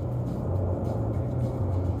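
Steady low vehicle rumble, like a car's engine and road noise heard from inside it.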